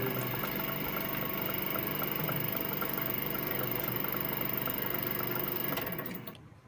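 Lathe running steadily, its motor and gearing humming with several steady tones, then switched off about six seconds in, the sound dying away within half a second.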